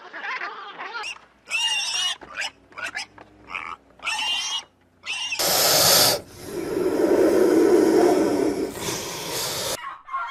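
Penguins giving a series of short squawking calls, then a long snake hiss lasting about four seconds that starts and stops abruptly.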